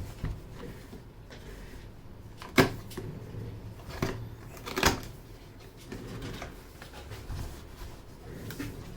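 Skyloong SK61 mechanical keyboard with Gateron optical switches clicking and knocking at irregular moments, with two sharper knocks about two and a half and five seconds in.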